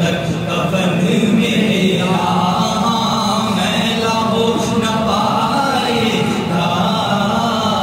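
Unaccompanied male voices singing a naat, an Urdu devotional poem, in long drawn-out phrases with held, ornamented notes.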